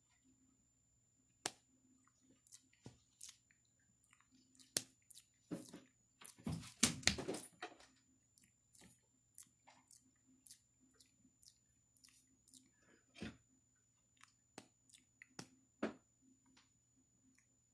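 Java macaque grooming a person's hair close up: faint scattered clicks and crackles as its fingers pick through the hair, with mouth-smacking sounds, and a louder rustle of hair about six to eight seconds in.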